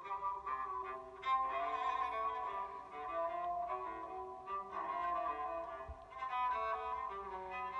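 An LG Aristo 2 phone alarm tone playing: a melodic tune of held, overlapping notes.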